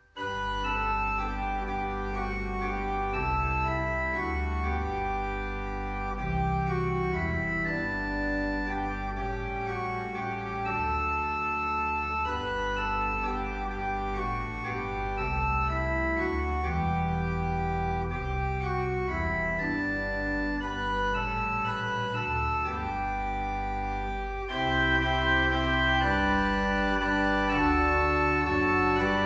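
Organ music: slow, held chords with a moving bass line, beginning right at the start and growing louder and fuller about 24 seconds in.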